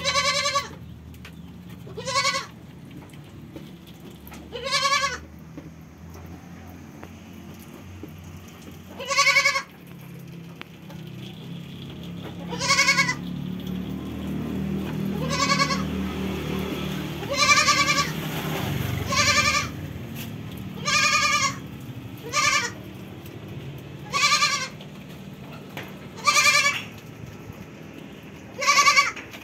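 Etawa-cross goat bleating repeatedly: about a dozen high, half-second bleats, one every two to three seconds.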